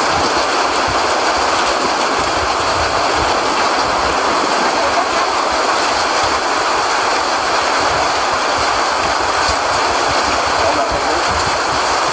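Strong whirlwind winds rushing, loud and steady without a break.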